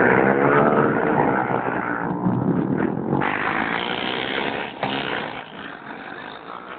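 Several small motorcycles racing past at full throttle, their engines overlapping. The sound is loudest at the start and fades away, with a brief sharp click about five seconds in.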